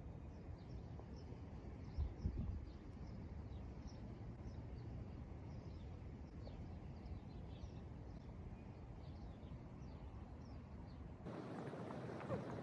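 Small birds chirping, many short high calls, over a steady low rumble, with a brief louder swell about two seconds in.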